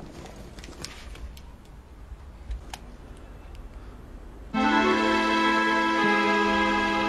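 Faint small clicks and handling noise for the first few seconds. Then, about four and a half seconds in, background music starts suddenly: sustained keyboard/organ chords that hold, with the bass note stepping down once.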